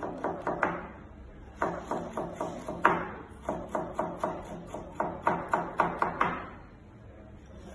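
Chef's knife finely chopping carrot on a plastic cutting board: quick runs of sharp knocks, about six a second, in four runs with short pauses between them, stopping near the end.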